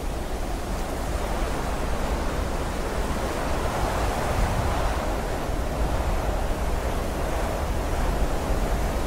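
A steady rushing noise with no tune or beat, swelling slightly around the middle. It is the ambient sound at the opening of a music video, before the song begins.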